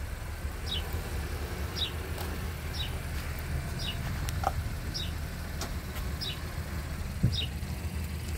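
Honda CR-V moving slowly out of a parking spot, with a steady low engine hum. A short, high, falling chirp repeats about once a second.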